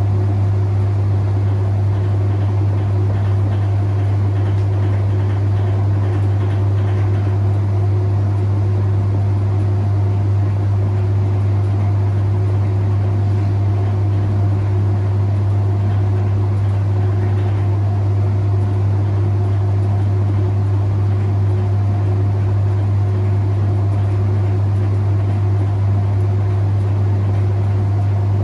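Whirlpool Heavy Duty top-loading washing machine running with a loud, steady low hum that does not change.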